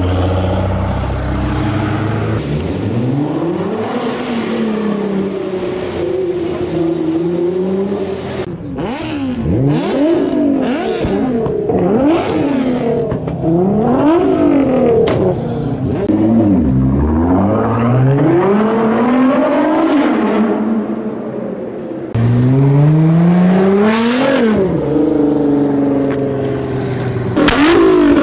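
Nissan GT-R engine revved repeatedly, the pitch climbing and falling again and again, with sharp pops and cracks from the exhaust between revs.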